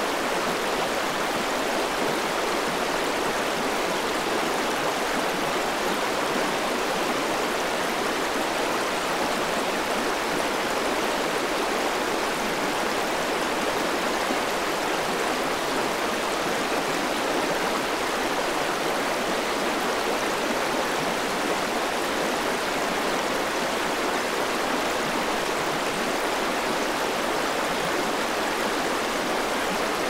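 Fast river rapids rushing over rocks: a steady, unbroken rush of whitewater.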